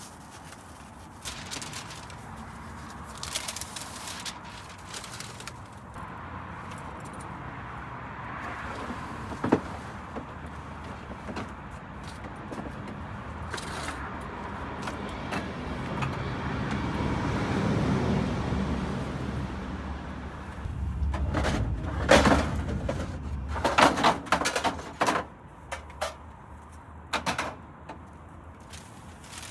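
Street ambience with a vehicle passing, swelling to its loudest a little past halfway. It is followed by a run of sharp knocks and clatter, like a door or equipment being handled.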